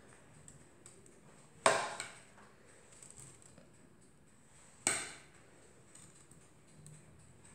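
A metal spoon clinks twice against ceramic dishes as meatballs are spooned out and placed, each clink ringing briefly.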